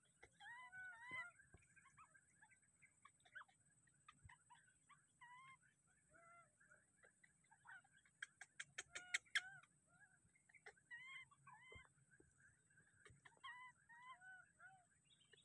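Baby monkey crying in short, high, repeated calls, each rising then falling in pitch, in small clusters of two to four. About eight seconds in there is a quick run of sharp clicks, the loudest sounds here.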